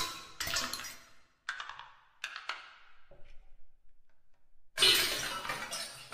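Solo percussion on struck objects: a few separate clinking strikes, each ringing briefly as it fades. A pause of almost two seconds follows, then a loud, dense flurry of clattering strikes near the end.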